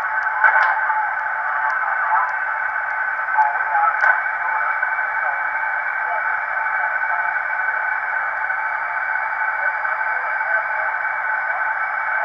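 Receiver audio from the homebrew KWM4 SSB transceiver tuned on the 40-meter band: steady band hiss held within a narrow voice passband, with faint sideband voices of stations in it. A click about half a second in and another about four seconds in.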